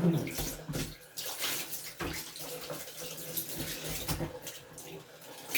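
Hot water running from a tap and splashing over a rubber-and-leather boot as the cleaner is rinsed off inside and out, gushing and spattering unevenly.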